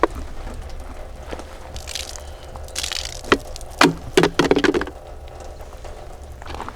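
Ruger Security-380 pistol firing .380 hollow-point rounds: one sharp crack at the start, then a quick string of cracks about three to four and a half seconds in. A low rumble of wind on the microphone runs underneath.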